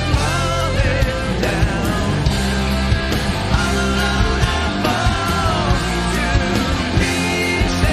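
Rock music with electric guitar, bass and a steady drum beat.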